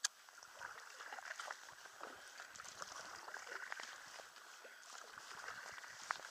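Kayak paddling: the paddle blades dip, splash and drip in a continuous, irregular patter, with a sharp click right at the start.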